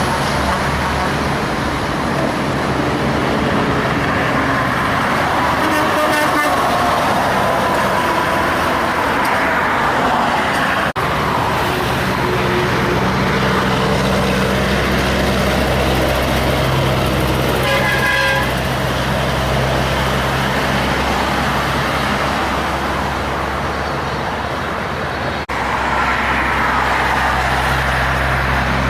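Heavy diesel trucks passing on a highway, engines running over steady road noise, with a short horn toot about two thirds of the way through.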